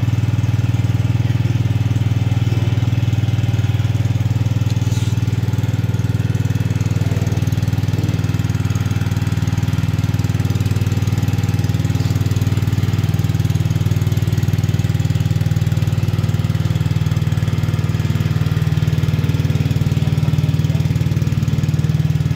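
Kingtech A33HR coconut milk pressing machine running, its motor driving the press with a steady low hum.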